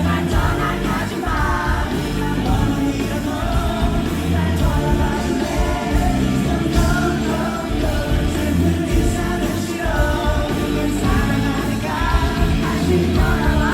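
Rock band playing live, with singing over guitars, bass and drums.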